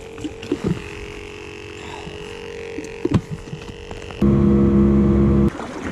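Small battery bait-bucket aerator humming steadily, with a few light knocks. About four seconds in, a much louder, lower steady hum starts suddenly and cuts off a little over a second later.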